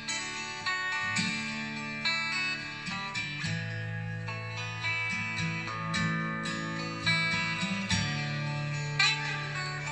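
Guitar music with plucked notes played back through a pair of JBL L100 loudspeakers, over sustained low bass notes.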